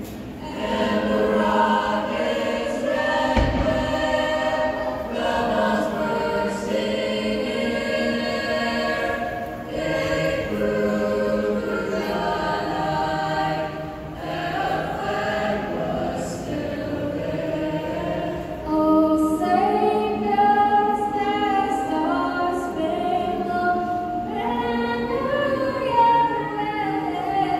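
High school choir singing the national anthem a cappella, sustained notes from many voices.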